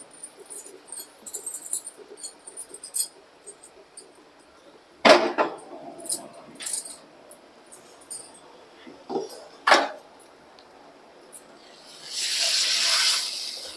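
Metal utensils clinking and knocking on steel cookware, with two sharper knocks about five and ten seconds in. Near the end comes a loud sizzling hiss lasting about a second and a half: the hot fried masala tempering hitting the rasam.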